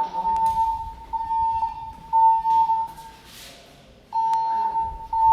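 Building fire alarm's evacuation tone: a steady mid-pitched beep sounding three times, pausing, then starting again. This is the evacuation signal that alternates with the recorded voice message.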